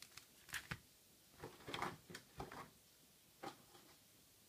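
Faint handling of cardboard and plastic packaging: a scatter of short clicks and rustles as a collection box is checked for its missing code card.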